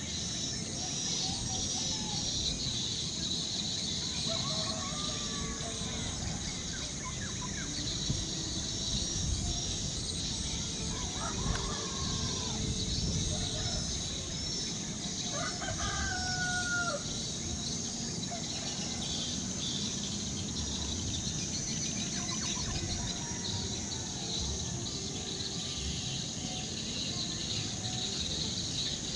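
Domestic fowl crowing several times, drawn-out calls that rise and fall, mostly in the first half, over a steady high-pitched buzz.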